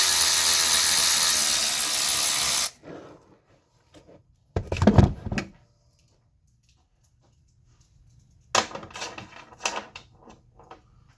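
A power tool turns the puller bolt steadily for nearly three seconds and then cuts off. About five seconds in there is a short loud burst of tool handling, and a clatter of tools and parts near the end.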